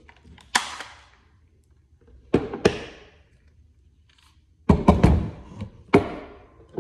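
Sharp hard clacks and knocks from an AR-style pistol being handled and set down on a wooden table: one about half a second in, two around two and a half seconds, a quick cluster near five seconds and another around six.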